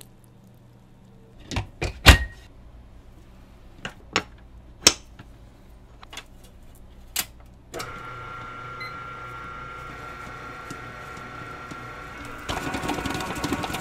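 Metal clanks and knocks as a stainless steel bowl and its beater are fitted into a commercial stand mixer. About eight seconds in, the mixer's motor starts and runs with a steady hum and whine, growing louder and rougher near the end as it mixes the corn dog batter.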